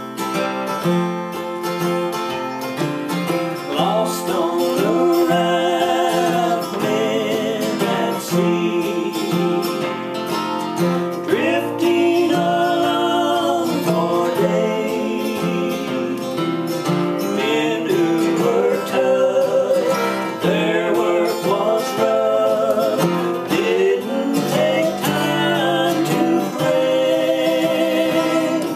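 Two acoustic guitars, one a Gibson Dove, strummed in a steady rhythm. About four seconds in, two men's voices join in a traditional close-harmony gospel duet.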